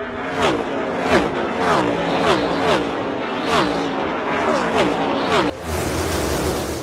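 NASCAR Next Gen stock cars' V8 engines passing one after another at racing speed, each dropping in pitch as it goes by, roughly every half second. About five and a half seconds in, the sound changes abruptly to a steadier, rougher engine noise.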